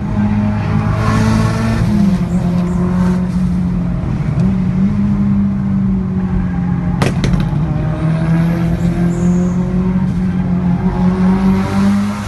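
Turbocharged four-cylinder performance car engine running under load, its note mostly steady with a few small jumps in pitch. About seven seconds in there is a single sharp exhaust pop.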